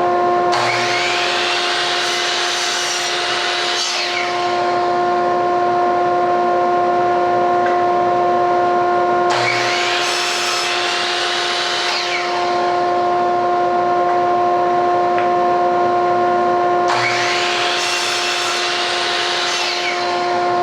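A dust collector runs with a steady hum while a compound miter saw spins up, cuts wood and winds down three times, each cut lasting about three seconds.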